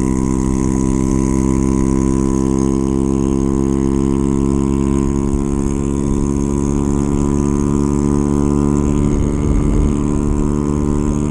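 Honda Ruckus scooter engine running steadily at cruising speed, with an even, unchanging pitch.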